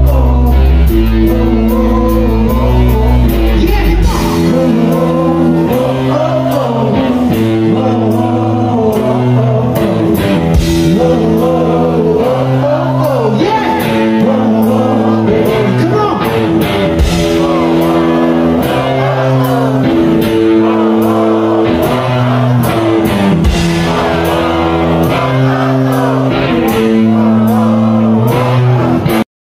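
Live rock band playing loud: electric guitar, drums and singing, with a heavy low bass note held for the first few seconds. The sound cuts out abruptly right at the end.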